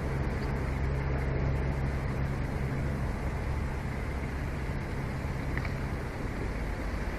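A steady rumbling noise with a low, even hum under it. The hum fades about six seconds in.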